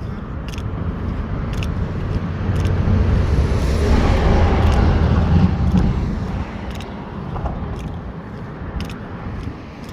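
Road traffic on the interstate bridge: a vehicle's rumble and tyre noise build to a peak about four to five seconds in as it passes, then fade. Light ticks of footsteps come about once a second.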